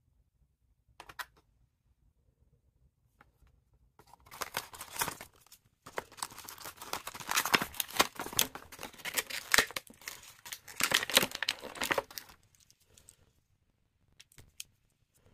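Clear plastic earbud packaging crinkling and crackling as it is pried open and the earbuds are pulled out. The crackling comes in stretches from about four seconds in until about twelve seconds, with a few light clicks before and after.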